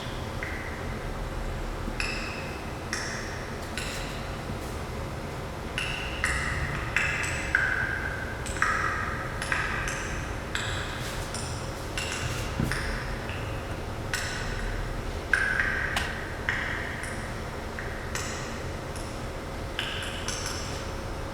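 Ancient ice, some 100,000 years old, popping and crackling as its trapped air escapes: irregular short clicks and brief ringing pings, some spaced out and some in quick clusters, over a faint steady hum.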